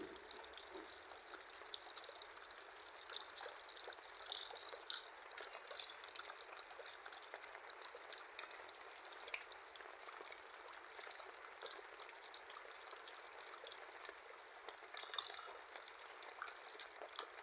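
Heavy rain falling, with rainwater pouring off the roof gutters: a steady rushing hiss scattered with drips and splashes.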